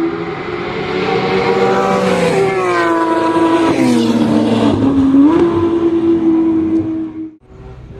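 Sports cars accelerating past on a race-track straight. Their engine note climbs in pitch, drops sharply about four seconds in as they go by, then holds a steady tone before cutting off abruptly near the end.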